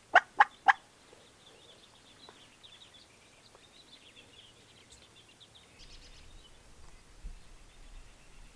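Merriam's wild turkey giving four quick, sharp clucks in the first second, close and loud, then faint high songbird chirping.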